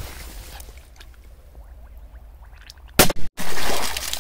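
A Banger firecracker exploding in water about three seconds in: a sharp double crack, the sound cutting out for an instant, then a loud rush of noise that tails off into a hiss as the spray falls back.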